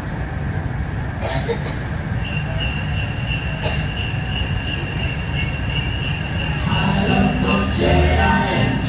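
Sleigh bells ringing in the intro of a Christmas song over park loudspeakers, starting about a second in. Fuller music with pitched instruments comes in near the end, all over a steady low rumble.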